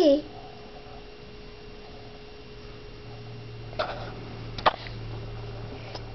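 A baby gives a short, wavering squeal right at the start, over a steady electrical hum. About four and a half seconds in there are a couple of light clicks.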